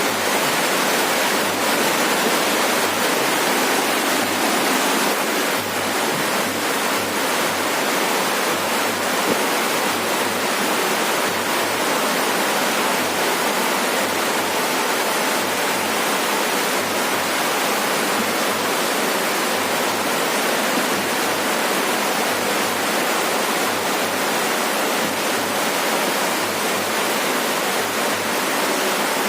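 Heavy rain falling steadily on a roof, an even, dense hiss.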